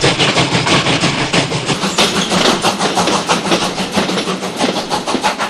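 Steam locomotive running at speed, its exhaust chuffing in a rapid, even beat of about five or six a second, slowly growing fainter.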